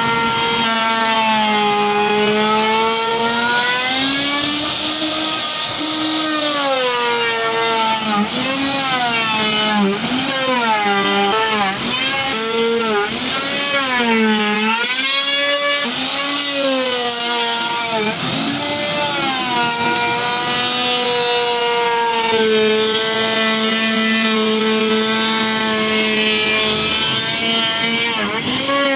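Electric woodworking router running at high speed, its motor whine dipping in pitch and recovering again and again as the bit cuts into the wood. It holds steady for stretches near the start and toward the end.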